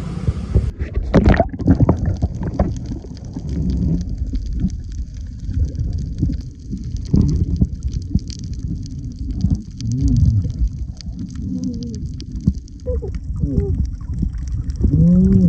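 Muffled underwater sound from a snorkeling camera: low, steady water rushing, broken from time to time by short bubbling gurgles.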